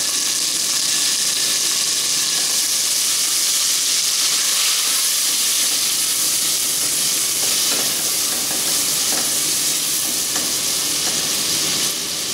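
Chopped tomatoes frying in hot oil with onions and spices in a steel pot: a steady sizzle. A silicone spatula stirs through them, with a few soft scrapes.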